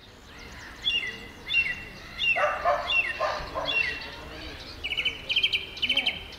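Songbirds singing: short falling chirps repeated about every second, then a fast, high trill near the end. Two lower, louder calls break in midway.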